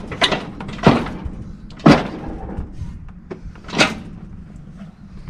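Ratchet strap being cranked tight to pull the piston and rod out of a Ford 770B front-loader lift cylinder: four loud clacks spread over the first four seconds, with fainter clicks between them.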